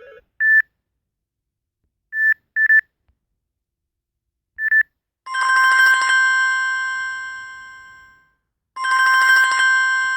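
Samsung Galaxy S5 ringtone tones playing. First come a few short single-pitch beeps. Then a bell-like chime rings out and fades over about three seconds, and it starts again near the end and is cut off abruptly.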